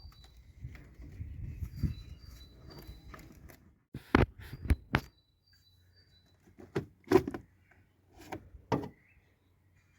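Hands working on a car's plastic air filter housing: about four seconds of rustling and shuffling, then a series of about seven sharp plastic clicks and knocks.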